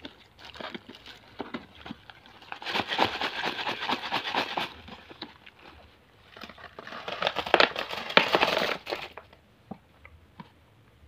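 Twist-wrapped hard sweets crinkling and clattering as they are tipped from their cardboard box into a plastic toy truck bed. The sound comes in two dense bursts, about three seconds in and again about seven seconds in, with lighter rustling between.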